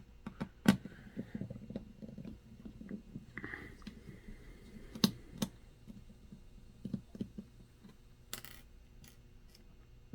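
Small scattered clicks and taps of a screwdriver backing a screw out of a laptop's hinge bracket, with light handling of the laptop's plastic and metal parts. There is a brief scrape near the end.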